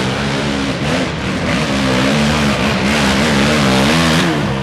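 A race quad's (ATV's) engine revs hard as it climbs a steep dirt hill. The pitch wavers quickly up and down as the rear wheels spin and dig in, and it grows louder before dropping back near the end.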